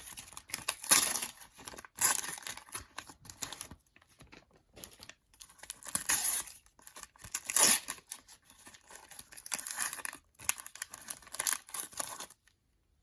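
Panini sticker packets being torn open by hand, their wrappers ripping and crinkling in a series of irregular tears that stop shortly before the end.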